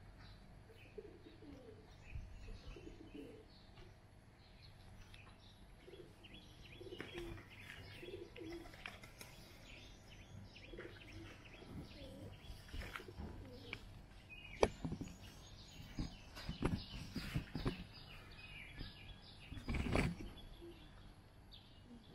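Doves cooing with small birds chirping around them. Several short sharp knocks come in the second half, the loudest about two thirds of the way through and near the end.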